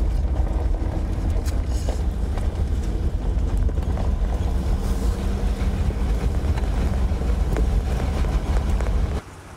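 Off-road vehicle driving slowly along a dirt trail: a steady low rumble of engine and tyres, which cuts off suddenly near the end.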